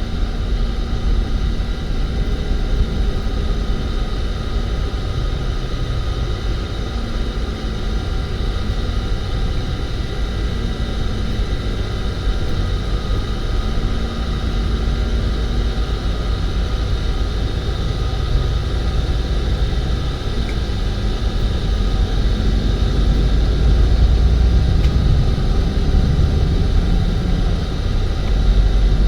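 Steady low rumble of a moving road vehicle, engine and road noise, growing a little louder about three-quarters of the way through.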